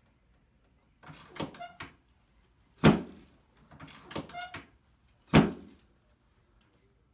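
Chiropractic treatment table knocking during a manual adjustment: two loud thumps about two and a half seconds apart, each preceded by a short run of creaks and squeaks from the table.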